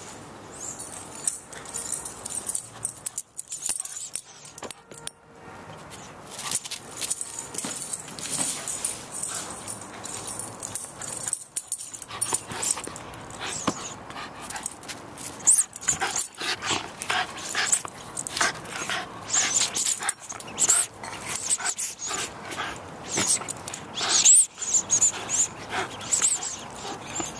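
Welsh terrier puppy whimpering during a game of fetch, with irregular clicks and scuffs throughout and short high-pitched sounds coming more often in the second half.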